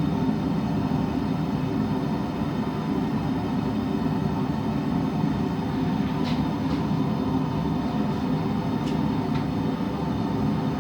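A forge running with a steady low roar, with a few faint short ticks in the second half.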